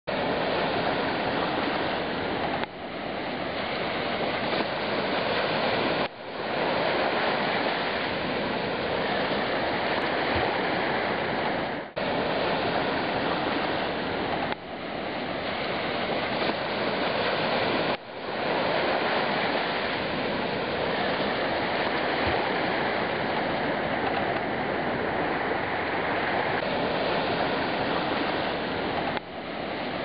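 Ocean surf washing onto a sandy beach: a steady, dense rushing of waves. It drops away abruptly six times and swells back each time.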